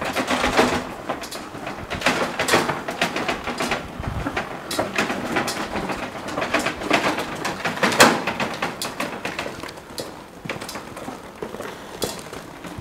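Loaded wheelbarrow rolling over rough paving, its load of paint tub, plastic bottles and bags rattling and knocking irregularly.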